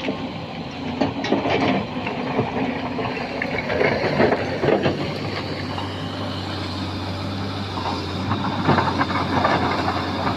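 Sany SY215C hydraulic excavator at work: its engine runs steadily, with clanks and knocks of the machine handling fill material, a cluster about a second in and another near the end. The engine drone steadies and strengthens about halfway through.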